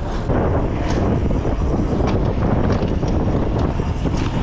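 Wind buffeting the microphone while riding a bicycle through street traffic, a dense low rumble, with a few sharp clicks and knocks from the bike scattered through.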